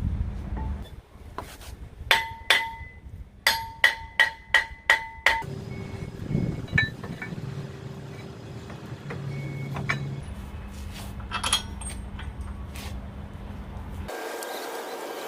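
Metal parts striking together during brake work, a series of sharp clinks that ring at a fixed pitch: two, then a quick run of about six. A steady low hum lies underneath and stops near the end.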